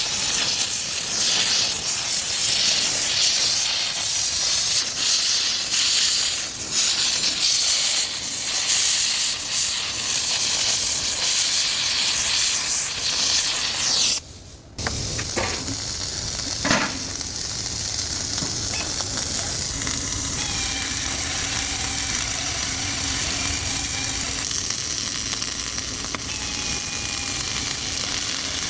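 Wire-feed welder arc burning flux-core stainless wire, with a crackling sizzle. It stops briefly about halfway. A steadier, smoother hiss with a faint hum follows.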